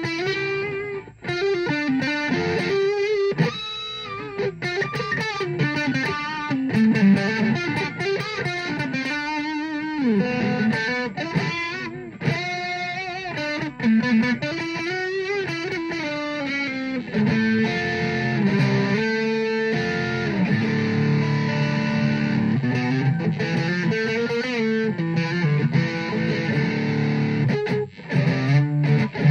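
Les Paul-style electric guitar with Washburn humbucking pickups, played with a distorted tone: a lead line of sustained single notes, many bending in pitch, with denser held notes later on.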